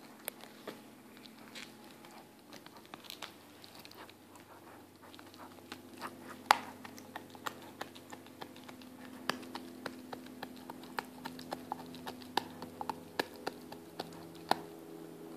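Weimaraner puppy gnawing a bone: irregular sharp clicks and cracks of teeth on bone, coming thicker in the second half, with the loudest crack about six and a half seconds in.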